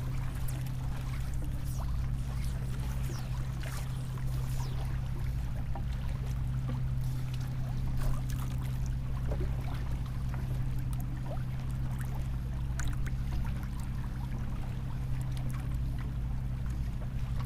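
Small waves lapping and splashing against a kayak hull, over a steady low hum.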